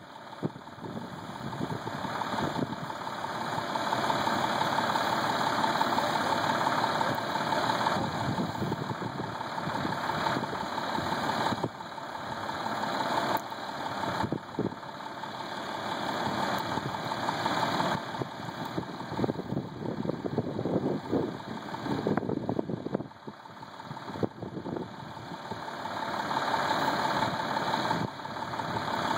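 Truck engine running steadily while the truck-mounted bridge inspection lift's platform boom is moved; the level rises and falls.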